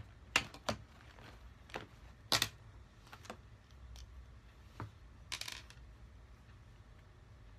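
Scattered sharp clicks and taps of small objects being handled close to the microphone. The loudest is a little over two seconds in, with a quick run of clicks around five and a half seconds in.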